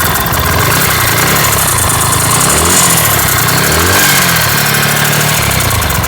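Bajaj Pulsar NS160 BS6 single-cylinder engine running just after starting, idling with a few short throttle blips near the middle. It is being run to demonstrate an odd intermittent tik-tik noise, which the mechanic traces to a loose timing chain striking the spark plug sleeve.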